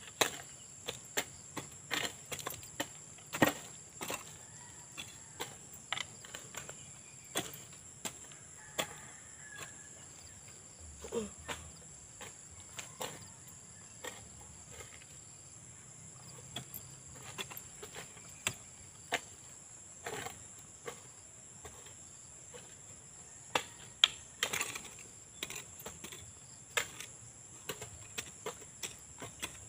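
Hand hoes chopping into soil and weeds, irregular knocks about one or two a second, while young corn plants are weeded. Under them runs a steady high-pitched drone of crickets.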